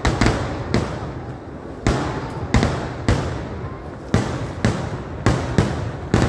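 A fireworks display: about ten heavy, sharp bangs at uneven spacing, roughly one every half second to a second, over an unbroken crackle and rumble of further explosions.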